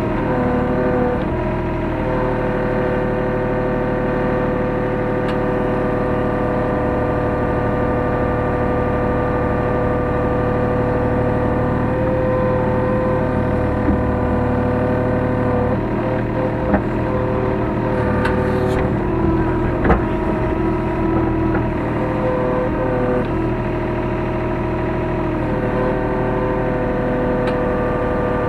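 Hyundai R35Z-9A mini excavator's engine running steadily, heard from inside the cab, its tone shifting slightly now and then as the machine works. A few short knocks come around the middle.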